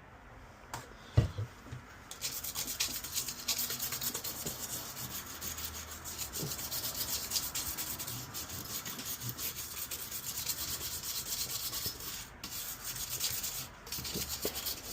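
Fast back-and-forth scrubbing on a circuit board's surface, cleaning off burnt residue, with a single knock about a second in and a couple of short pauses near the end.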